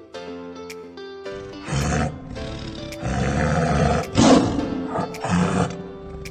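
Tiger roaring over background music: a series of four or so roars that start about two seconds in, the loudest just past the middle.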